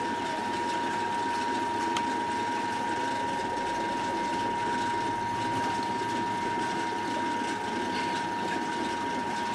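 Motor-driven stone mill grinding soaked soybeans into slurry, running steadily with a constant whining tone over an even grinding noise.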